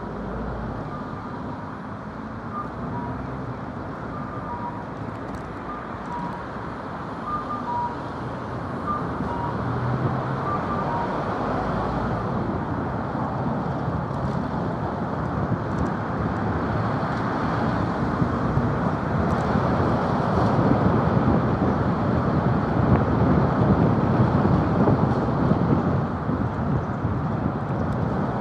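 Road and wind noise of a camper van driving, heard from a microphone on its roof: a steady rush of tyres and air that grows louder from about ten seconds in. Faint alternating two-pitch beeps sound during the first ten seconds or so.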